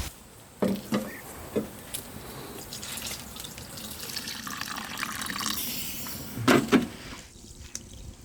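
Water running and splashing, with sharp knocks: three in the first two seconds and two more about six and a half seconds in.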